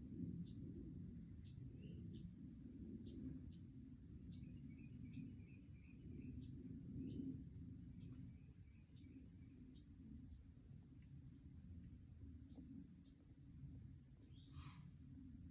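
Faint, steady high-pitched drone of insects, over a low rumble, with a few small ticks and one short falling call near the end.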